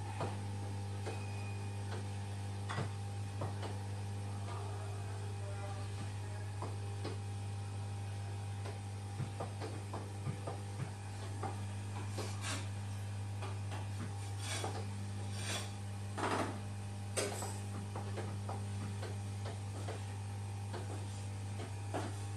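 Electric massage chair running with a steady low electric hum and a few fainter steady tones above it. A handful of short rubbing and clicking sounds come mostly in the middle.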